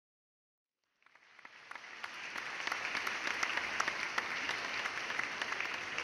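Audience applause, many hands clapping, fading in from silence about a second in and then holding steady.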